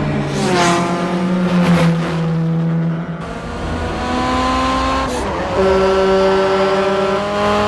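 Modified Honda Civic engines at high revs under hard acceleration, a loud pitched engine note held high. The pitch drops at gear changes near the start and again about five seconds in, then holds or creeps upward.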